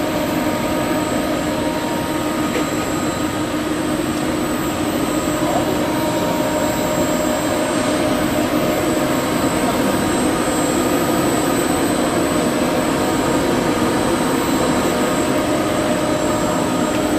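Friction stir welding equipment running steadily: a constant machine hum with a steady whine over a noisy bed, unchanging throughout.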